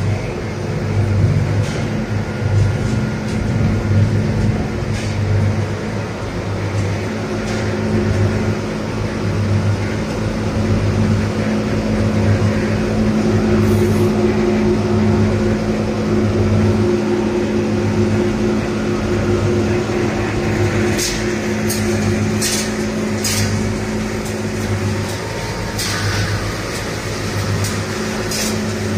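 V-S45 cable granulator running: a steady machine hum with a constant low drone. From about three-quarters of the way through, a scatter of sharp clicks and knocks sounds over the hum.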